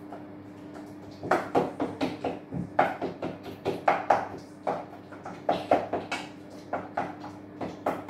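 Ripe bananas being mashed in a small metal bowl: a utensil knocking against the bowl in irregular strokes, one or two a second and sometimes in quick pairs, starting about a second in. A faint steady hum runs underneath.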